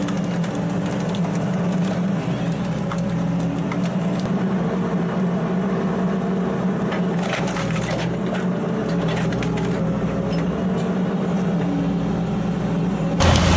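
A heavy wood-processing machine's engine runs steadily while wood cracks, snaps and splinters under it, with a cluster of sharp cracks about halfway through. Just before the end the sound changes abruptly to a louder engine.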